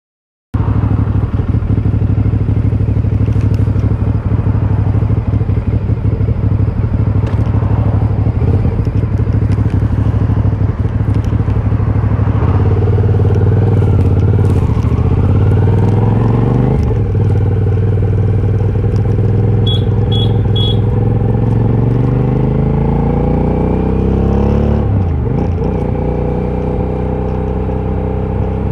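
Aprilia Shiver 750's V-twin engine running through its stock exhaust, first at a steady idle, then revved: the pitch rises and falls a few times from about halfway through, climbs slowly, and drops sharply near the end.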